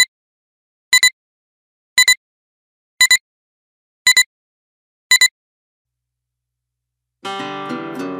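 Film-leader countdown beeps: a short high beep once a second, five times, ending about five seconds in. After a pause, music starts near the end.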